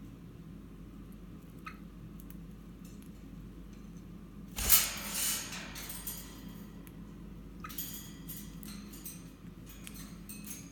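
Wire birdcage clinking: one loud clatter about halfway through, then scattered light clicks and taps against the metal bars.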